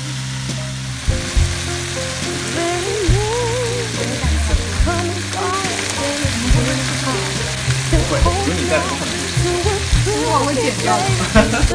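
Crab pieces frying in hot oil with a steady sizzle, over a background song with a singing voice.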